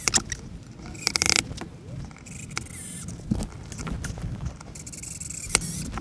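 Hands working a steel table leg, its screws and a cordless screwdriver against an MDF tabletop: scraping and rubbing with scattered sharp clicks and knocks. There is a short burst of rapid clicking about a second in.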